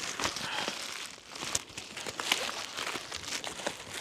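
Packaging rustling and crinkling with small clicks and crackles as a hammer is worked out of tight-fitting packaging, easing off briefly about a second in.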